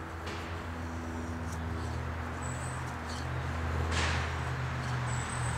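A thin Scandi-ground carving knife, the Adventure Sworn Wayfarer, shaves a curl off a feather stick with one short scraping stroke about four seconds in, with a few faint clicks. A steady low hum runs underneath.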